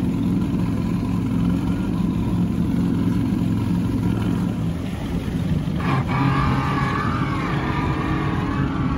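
A boat engine running steadily at idle. About six seconds in, an outboard's power tilt/trim motor starts up with a wavering whine that sounds awful.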